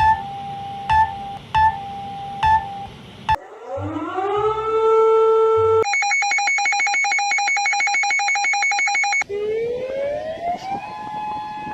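A sequence of electronic emergency alarm tones: first a steady tone broken by four sharp clicks, then a siren tone that rises in pitch and holds, then a fast two-tone warble of about ten alternations a second, then another siren tone rising and holding steady.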